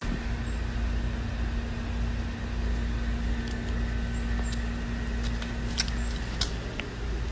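Steady low mechanical rumble, with a faint steady hum that stops about six seconds in and a few light clicks.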